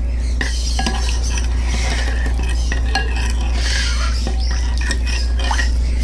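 Metal spoon stirring and scraping a thick mixture of baby-bird hand-feeding formula in a glass bowl, with many small clinks of the spoon against the glass. A steady low hum runs underneath.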